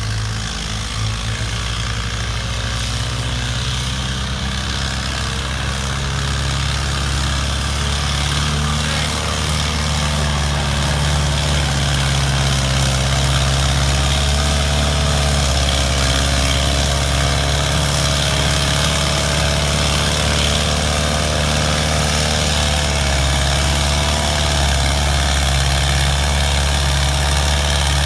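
Modified antique farm tractor engine working hard under load while pulling a weight-transfer sled. It holds a steady low note that grows louder over the first ten seconds or so.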